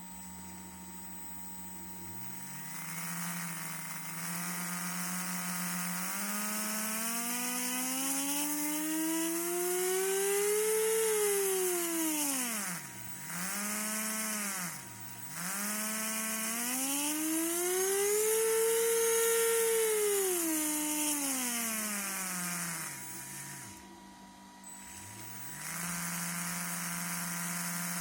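OCDAY 3650 3900KV brushless motor spinning with no load, its whine rising slowly to a high pitch and falling back twice, with brief dips between, then holding a steady lower speed near the end. The running is noisy because the shaft is much smaller than the bearing bore, so it moves loosely and runs misaligned in the bearings.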